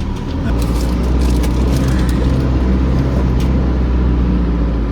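Four-wheel-drive vehicle driving along a soft sand track: a steady low rumble of engine and tyres that swells about half a second in, with faint clicks and rattles over it.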